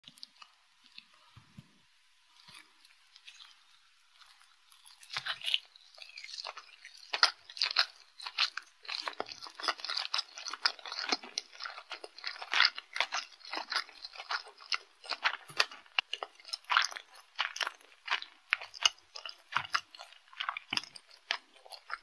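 Close-miked chewing of a seaweed-and-sesame rice ball. A few faint sounds, then from about five seconds in a dense, continuous run of sharp mouth clicks.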